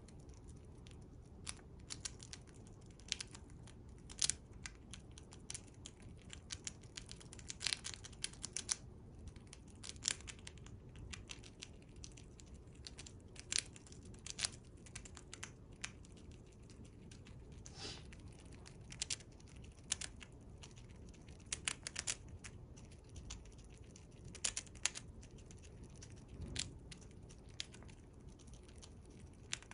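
A Siberian chipmunk chewing and gnawing a piece of food held up close: an irregular run of tiny sharp clicks and crunches, several a second.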